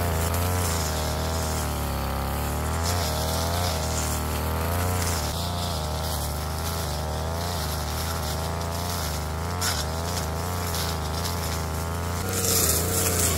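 Brush cutter's small petrol engine running at high speed, its pitch wavering up and down under load as it cuts grass.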